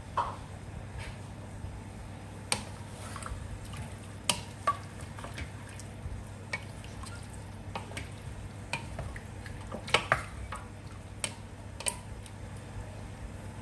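Chicken wings cooking in soy-sauce adobo sauce in a pan, with scattered sharp pops and clicks over a steady low hum.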